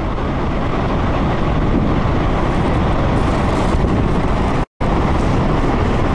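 Fast-flowing muddy floodwater rushing in a steady, dense noise. It cuts out completely for a split second about three-quarters of the way through, then carries on the same.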